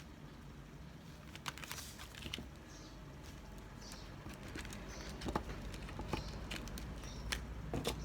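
Irregular light taps, clicks and rustles of small objects being handled, coming a little more often in the second half, over a low steady hum.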